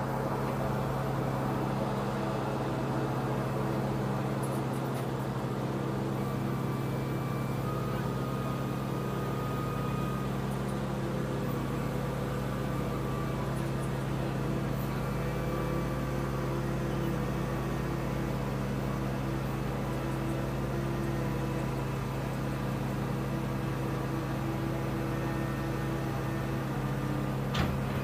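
Steady engine drone, an even low hum with faint higher steady whines over it, and a single short knock near the end.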